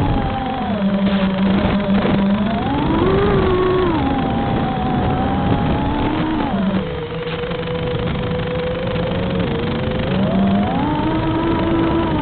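Small electric motor and propeller of a remote-control aircraft whining, its pitch rising about two seconds in, dropping about six and a half seconds in, and rising again near the end as the throttle changes. Steady wind rumble runs underneath.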